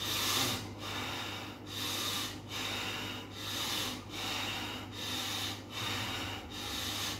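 A man's forceful breathing through the nose, quick evenly spaced hissing breaths in and out, a little more than one a second, as a breathing exercise.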